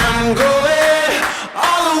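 Background music: a sung vocal phrase over a sparse backing, just after the full rock band drops out, with a short break about one and a half seconds in.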